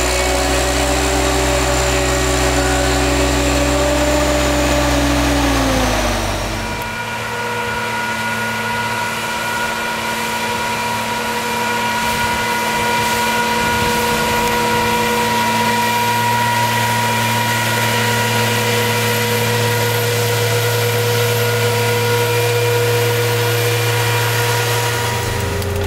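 Engine of a Miller Nitro self-propelled sprayer running steadily as it drives through a field with a cultivator toolbar. About six seconds in, its pitch drops and it gets quieter, then it runs on evenly.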